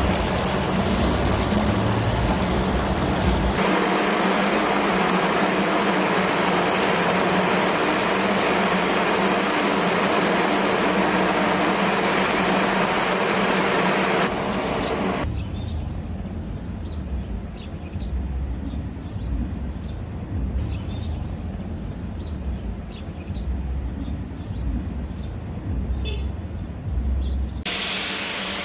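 Stick-welding arc crackling and hissing steadily. About fifteen seconds in it changes abruptly to a quieter, duller sound with a low rumble and scattered sharp ticks.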